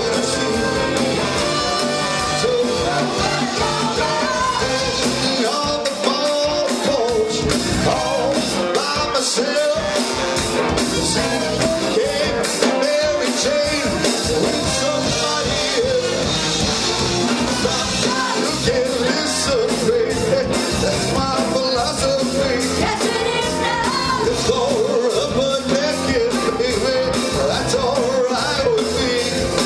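Live rock and roll band playing, with a singer over electric guitar and a drum kit beating a steady rhythm.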